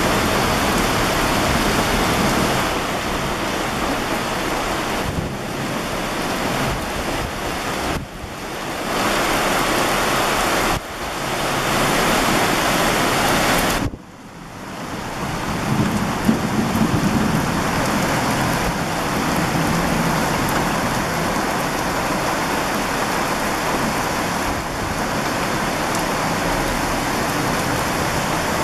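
Heavy downpour: dense, steady rain hissing on pavement, car roofs and a metal roof edge. The sound drops out abruptly for a moment three times, and a few brief louder thumps come a little past halfway.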